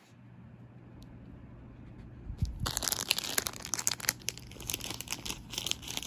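Clear plastic bags holding nail gel tubes crinkling as they are handled, starting about two and a half seconds in as a dense run of small crackles.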